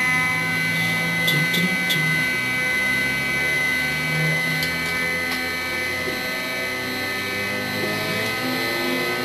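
Sieg X2 mini mill's spindle running at a steady speed with a high, even whine, just after spinning up. A few light clicks sound over it, and near the end the pitch of some of the tones slides a little.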